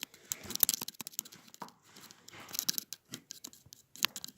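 Slime being squeezed and worked by hand, giving a string of irregular crackling pops and clicks.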